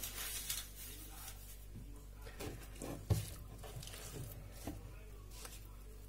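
Hands working soft, sticky bread dough: faint squishing and patting, with a dull knock about three seconds in.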